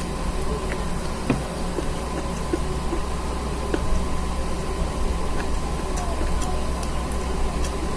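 Steady hiss and low hum of background noise, with a few faint clicks of someone eating by hand from a plate.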